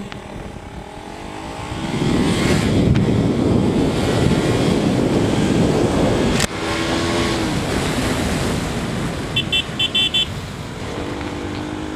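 KTM RC motorcycle under way, its engine and the wind noise rising about two seconds in as it pulls off. A quick series of short, high horn toots sounds near the end.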